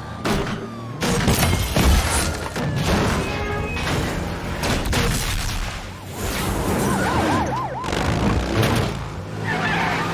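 Action sound-effects mix of a police chase: repeated crashes, booms and smashing over a low engine rumble, with a police siren yelping briefly about seven seconds in.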